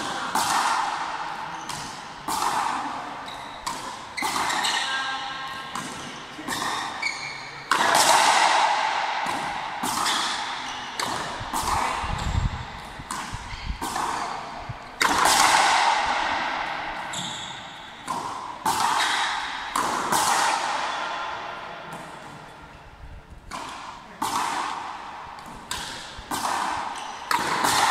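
Frontenis rally: the small rubber ball cracking off rackets and smacking against the front wall, a sharp hit every second or two. Each hit rings on in the large indoor court.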